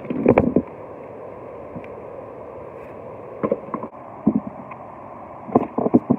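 Stones knocking and scraping against each other as rocks wedged between boulders are pulled out by hand, in short clusters near the start and several more in the second half, over the steady rush of a river running high.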